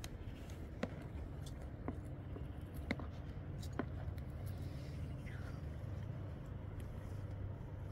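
Small sharp clicks and knocks of hands handling a wooden cradle, four of them about a second apart, over a steady low outdoor rumble.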